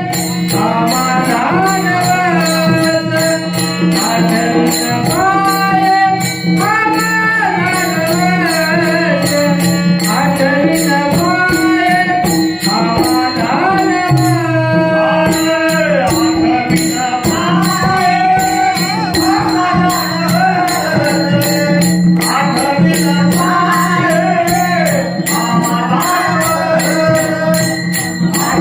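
Marathi devotional bharud singing: a solo voice carries a wavering melody over a steady harmonium drone, with jingling hand percussion keeping an even beat.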